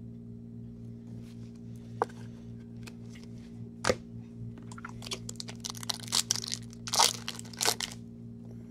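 Foil wrapper of a 2016 Bowman Chrome baseball card pack being torn open and crinkled: a dense run of crackling from about five seconds in, loudest near the end. Two sharp clicks come before it, over a steady low hum.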